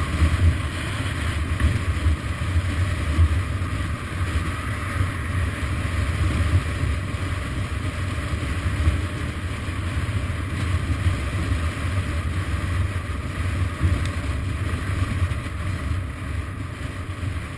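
Suzuki DR650 single-cylinder engine running at a steady cruise, heard from the bike itself, with rushing wind over the microphone.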